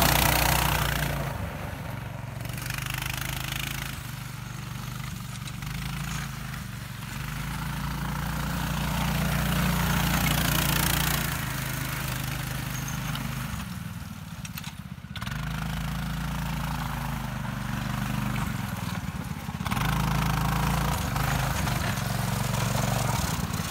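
Small engine of a Snow Mutt tracked sled puller running steadily as it drives over snow towing a rider's sled. It fades as the machine moves off, weakest about halfway through, then grows louder as it comes back close.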